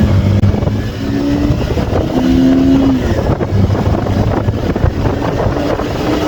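SYM NH Trazer 190 motorcycle's single-cylinder engine accelerating for a top-speed run, its pitch climbing and dropping back several times as it goes up through the gears, over a steady rush of wind noise.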